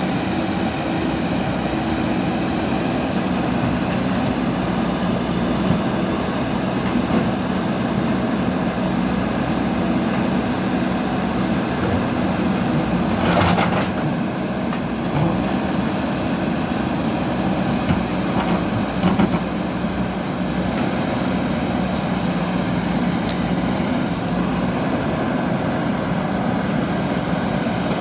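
JCB backhoe loader diesel engine running steadily under work, with a few short metallic clanks, about 13 and 19 seconds in.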